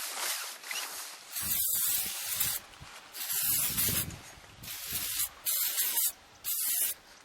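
Silicone spray from an aerosol can hissing onto a kayak sail mast in five short bursts, the first the longest. It lubricates the mast so the sail's furler spins easily.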